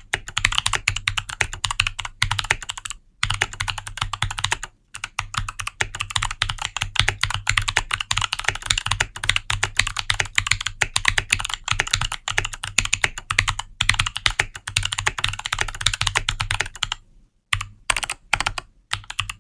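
Fast touch-typing on a Keychron K8 Max keyboard fitted with Kailh Box Autumn 50g clicky switches and double-shot ABS keycaps: a rapid, continuous clatter of clicky keystrokes with two brief pauses. Near the end it slows to a few last keystrokes and stops.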